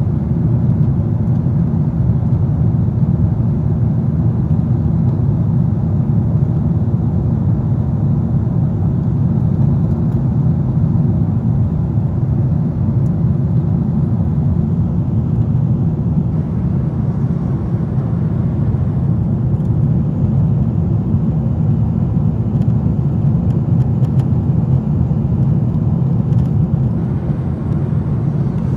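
Steady low drone of an airliner cabin in cruise flight: engine and airflow noise heard from inside the passenger cabin, even throughout.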